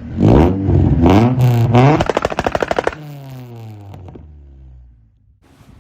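Straight-piped Honda H22A4 four-cylinder in a Prelude being revved hard, hitting the rev limiter with a rapid stuttering crackle for about a second, then revs falling away and fading near the end.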